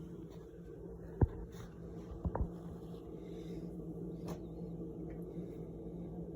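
One sharp knock about a second in, then two lighter knocks a second later, over a steady low hum.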